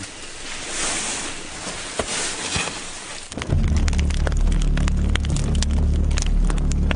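A steady hiss with scattered crackles. About three and a half seconds in, a loud, low, steady drone starts abruptly, with fast irregular clicking over it.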